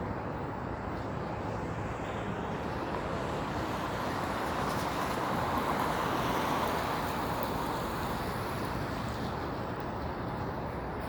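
City street traffic: a steady wash of road noise, with a vehicle passing that swells and fades about halfway through.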